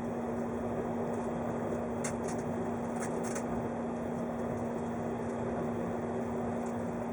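Interior running noise of a 583 series electric train: a steady rumble of wheels on rail with a constant hum, and a few light clicks about two and three seconds in.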